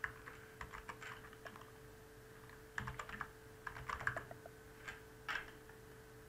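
Computer keyboard being typed on: quick runs of keystrokes in a few short bursts, with a faint steady hum underneath.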